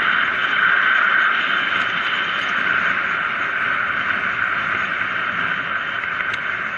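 Steady rushing noise of air and tyres from a mountain bike coasting fast down an asphalt road, easing slightly toward the end.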